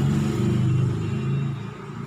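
Low engine rumble of a motor vehicle running close by, fading about one and a half seconds in.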